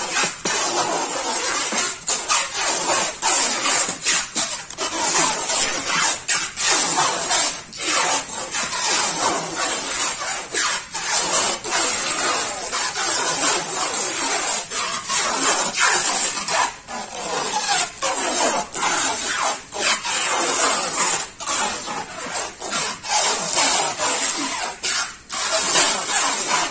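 Clear plastic stretch film being pulled off a hand-held roll and wound around a bundle of door frames: a steady hissing screech with several brief breaks.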